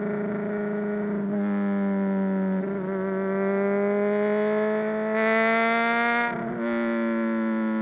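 Honda CBR600RR's inline-four engine running through a Mivv X-Cone dual exhaust at steady mid revs, its pitch creeping slowly upward with a few brief dips. It gets louder and brighter for about a second around five seconds in, then eases back.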